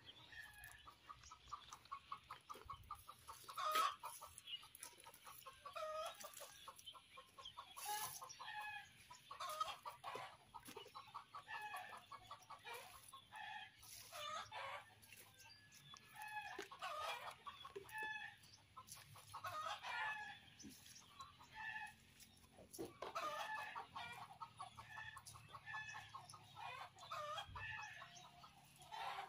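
Backyard chickens clucking and calling on and off, with a sharp knock about four seconds in.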